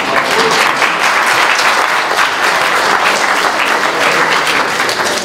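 Audience applause: many people clapping at once, steadily.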